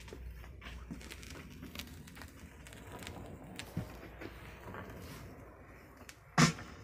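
Stylus tracking a vinyl record's silent lead-in groove, heard through hi-fi loudspeakers: faint surface crackle with scattered clicks, and two louder pops near the end.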